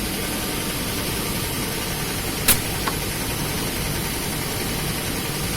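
Heidelberg Speedmaster SM 72 offset printing press running steadily, with one sharp click about two and a half seconds in.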